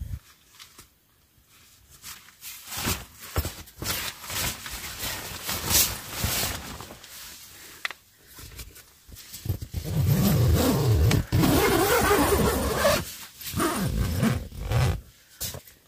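Tent door zipper being pulled and the nylon tent fabric rustling as the tent doors are shut, with scattered clicks and handling noises and a louder, longer rasp of the zipper a little past the middle.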